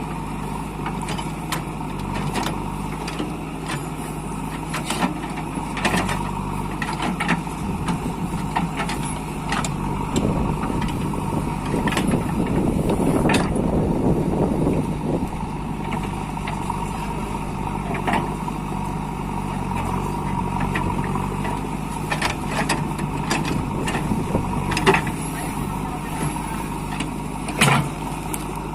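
JCB 3DX backhoe loader's engine running steadily under working load, with frequent metallic clanks and knocks from the machine and a louder rough, scraping stretch midway. Two sharper knocks come near the end.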